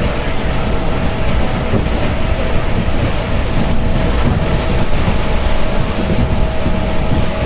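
Passenger train running along the track: a steady rumble of wheels on rails, with a thin, steady whine above it.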